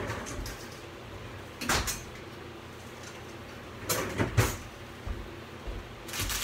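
Kitchen handling noises: a sharp knock a little under two seconds in, two more knocks around four seconds, and a run of clatter near the end, over a steady low hum.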